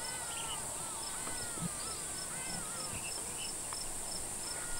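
Steady high-pitched insect drone with a regular chirp about four times a second, and thin wavy whistled calls over it. No clear call from the lions or the buffalo stands out.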